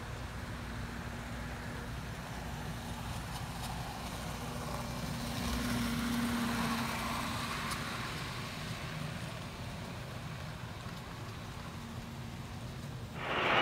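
Model freight train running on the layout track: a steady hum of motor and wheels on rail, growing a little louder around the middle as it passes and then easing off. Near the end a much louder rolling train sound cuts in abruptly.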